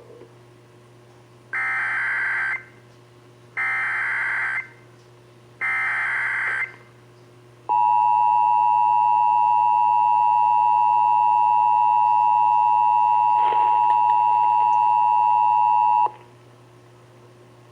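Emergency Alert System tones over AM radio: three one-second bursts of SAME digital header data, then the EAS two-tone attention signal, two steady tones (853 and 960 Hz) sounding together for about eight seconds before cutting off. This sequence heralds an emergency alert message, here a severe thunderstorm warning.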